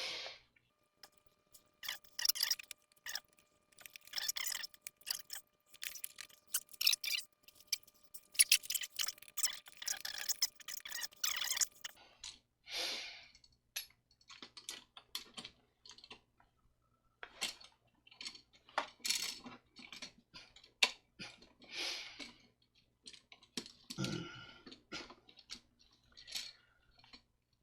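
Irregular small clicks, taps and short scratchy scrapes of stiff copper electrical wires and a plastic wall outlet being handled and worked by hand. The scrapes come thick and fast for the first dozen seconds or so, then thin out to scattered clicks.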